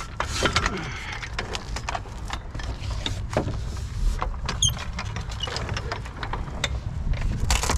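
Car jack being handled and set in place under the car: irregular clicks and knocks over a low rumble, with a brief high squeak about halfway through.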